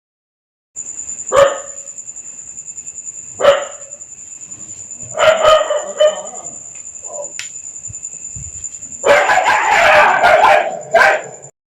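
A dog barking: single barks about a second in and again a couple of seconds later, a short run of barks in the middle, then a dense burst of barking near the end. A steady high-pitched whine runs underneath throughout.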